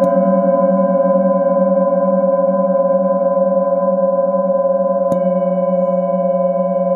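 Metal singing bowl, held on the palm and played with a wooden mallet, ringing with a steady, layered tone whose low part wavers. The mallet strikes it once more about five seconds in, renewing the ring.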